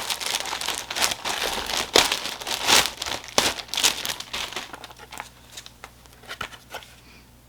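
Plastic packaging crinkling and rustling in quick irregular crackles as it is handled and pulled open, busy for the first few seconds and thinning out toward the end.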